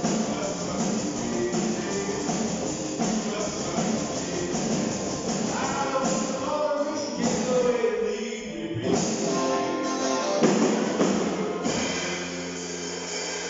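A small rock band playing live, with electric guitars, drums and a singer; about twelve seconds in the band stops on a final chord that is left ringing and fading.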